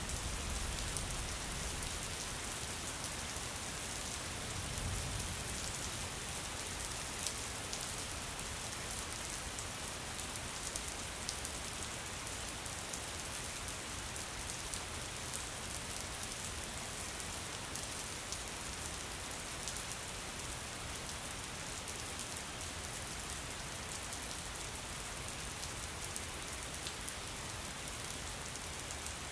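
Steady rain falling: an even hiss with scattered drops ticking. The tail of a low thunder rumble dies away in the first second.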